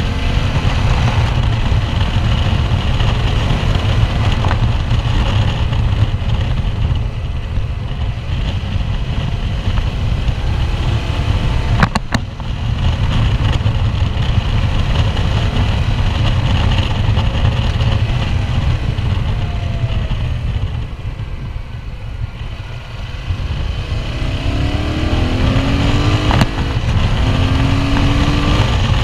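A QJ Motor SRT 800's parallel-twin engine running on the move under heavy wind rush on the microphone, with a sharp click about twelve seconds in. Near the end the engine note rises in steps as the bike accelerates through the gears.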